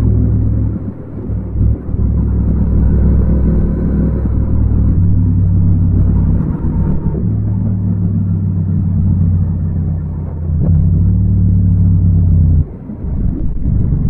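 Yamaha MT-07's 689 cc parallel-twin engine running while riding, a steady low note with small shifts in pitch. Near the end the level drops off sharply and the sound turns rougher as the throttle is closed.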